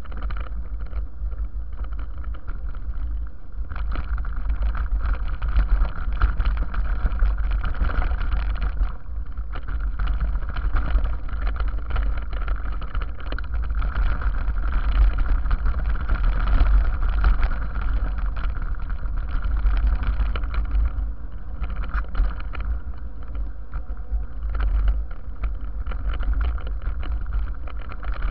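Wind buffeting the microphone of a mountain bike rider's action camera during a descent, with the bike and camera rattling and knocking steadily as the tyres run over a rough, stony dirt trail.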